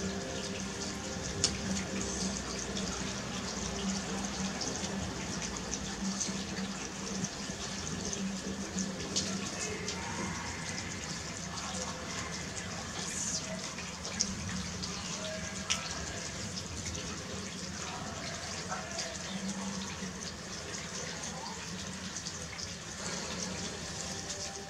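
Steady trickling and splashing of rainwater after a storm, runoff still running and dripping, with a few sharp drip-like ticks and a faint low hum underneath.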